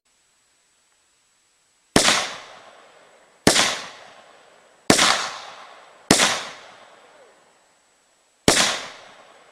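Five rifle shots, spaced one to two and a half seconds apart, each a sharp crack trailing off over a second or so.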